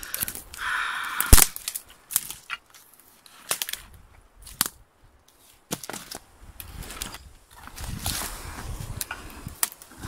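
Dry twigs and pine branches snapping and cracking, with rustling of brush, as someone forces a way through dense dry undergrowth. One sharp snap about a second in is the loudest, and scattered cracks follow through the rest.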